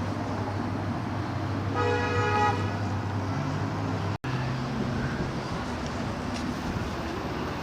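A vehicle horn honks once, briefly, about two seconds in, over the steady low rumble of idling traffic stuck in a jam.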